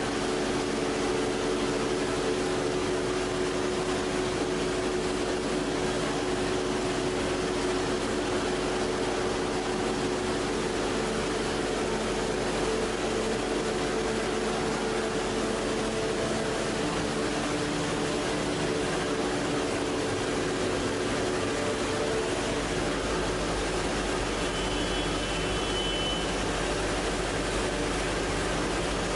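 Plastic strapping extrusion line running: a steady machine hum and hiss with several steady low tones, which thin out after about twenty seconds.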